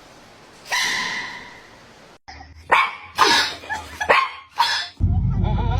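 A dog barking: a run of about five short, sharp barks in the middle, after a single sudden sound that fades slowly about a second in.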